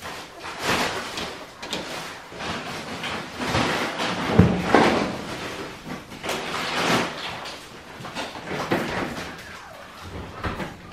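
Australian Shepherd puppies shuffling in wood-shavings bedding and eating at a tray of dry food, making repeated rustling and scraping sounds, with one sharp knock about four seconds in.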